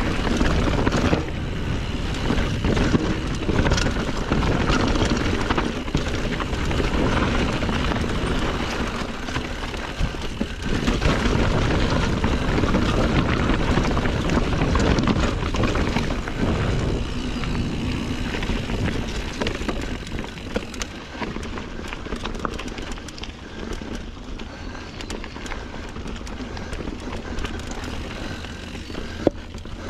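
Norco Sight A2 mountain bike ridden along a dirt singletrack: a steady rush of tyre roll and wind on the camera microphone, with constant rattles and knocks from the bike over rough ground. It eases somewhat past the middle.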